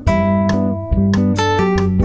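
Background instrumental music: a quick run of plucked notes, about four or five a second, over a steady low tone.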